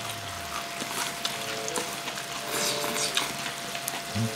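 Pork belly sizzling on an electric grill pan, with a few light clicks.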